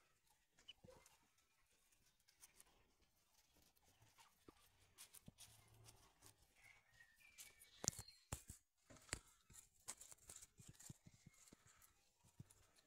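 A flock of white domestic ducks grazing on grass, mostly quiet: faint scattered clicks from pecking, a cluster of sharper clicks about eight seconds in, and a few short soft calls.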